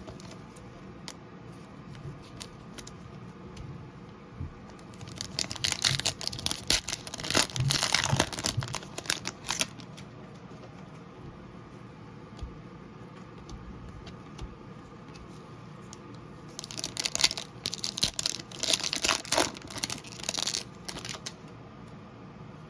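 Foil trading-card pack wrappers crinkling and tearing as packs are ripped open and handled, in two bouts of dense crackling several seconds each.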